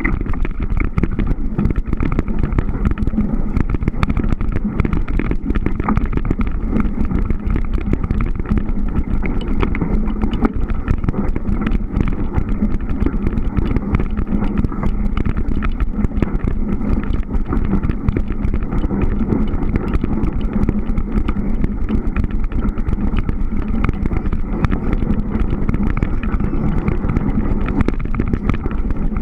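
Surly Moonlander fat-bike rolling over snow, heard close up from a camera on the bike: a continuous loud rumble with many small crunches and rattling clicks.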